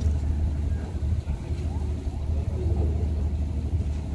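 Marine engine running steadily with a deep, even drone.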